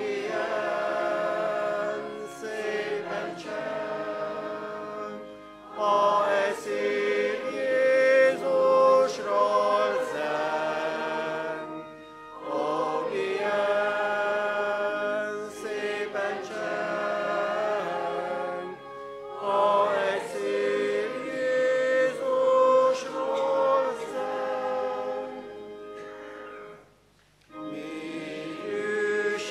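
A congregation singing a hymn together, phrase by phrase, with short breaks between lines and a longer pause near the end.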